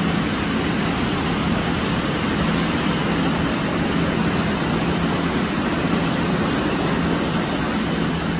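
Ocean surf breaking and washing in: a steady rushing noise.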